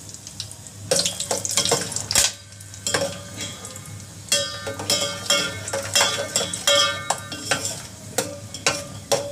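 Cashews and almonds frying and sizzling in a steel pot, being browned to a golden colour. A spoon stirs them, clicking and scraping against the steel, with ringing metallic scrapes from about four seconds in.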